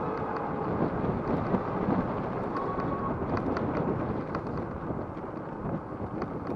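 Wind buffeting the microphone of a chest-mounted camera on a moving e-bike: a steady low rushing rumble with scattered light clicks and rattles, and a brief faint whine about halfway through.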